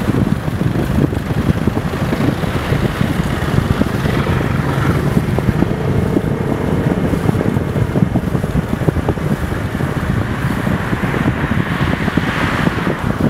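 Wind buffeting the microphone over steady traffic and tyre noise on a wet road, with a vehicle passing close by near the end.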